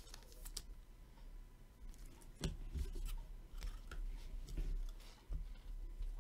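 Trading cards being handled by hand: faint rustling and scraping of card stock, with scattered light taps and a few soft knocks.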